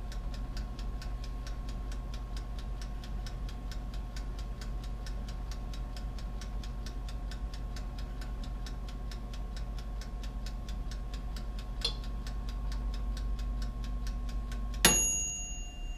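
Black+Decker toaster oven's wind-up timer ticking steadily over the hum of the oven running. Near the end the timer's bell dings once and rings on, and the ticking and hum stop: the bake time is up and the oven has switched off.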